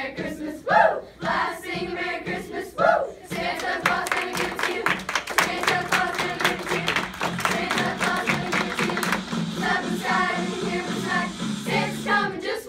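Children's choir performing a Christmas funk song over a backing track. A few short group vocal calls come first, then the group claps in rhythm to the beat for several seconds, and the singing comes back near the end.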